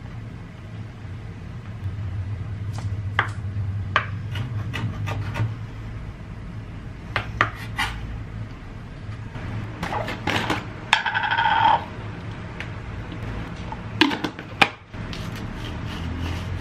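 A kitchen knife cutting carrot into thin strips on a wooden cutting board: irregular sharp taps of the blade on the board, with slicing and rubbing between them. A short scrape comes about two-thirds of the way through, and a steady low hum runs underneath.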